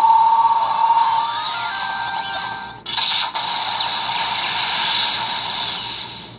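Electronic sound effects played through the small speaker of the Ryuko no Geki, the Donbrothers toy weapon, set off by a gear piece. A held electronic tone comes first, then about three seconds in a sustained, noisy blast that cuts off suddenly at the end.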